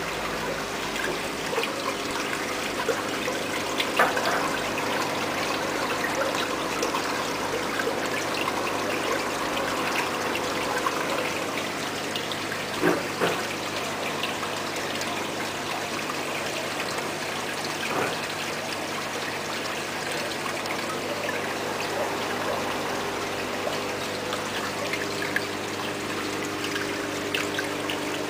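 Aquarium water trickling and splashing from tank filters, over a steady hum of running pumps, with a few light knocks.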